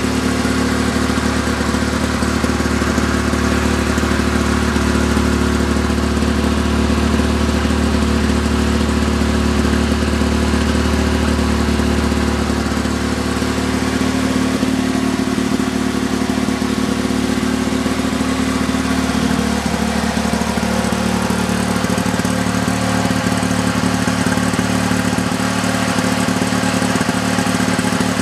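1965 Lawn Boy model 5233 mower's two-stroke engine, freshly rebuilt with a new piston, cylinder and crank, running steadily.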